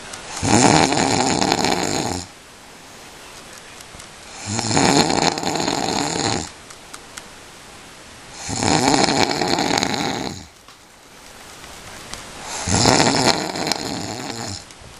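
A person snoring loudly in sleep: four long snores, each about two seconds, coming about every four seconds, with quieter stretches between.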